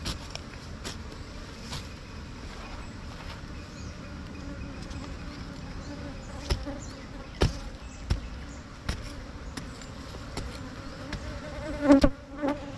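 Honey bees from a disturbed wild nest buzzing in a steady hum, with scattered sharp knocks of a billhook chopping into the soil. Near the end the buzz swells briefly louder as bees come close.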